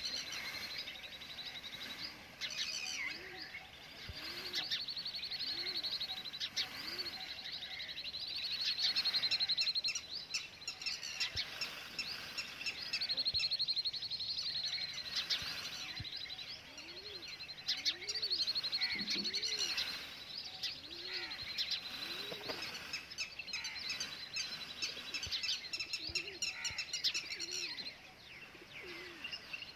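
Chorus of small birds chirping and trilling, with doves cooing in short, low, repeated notes.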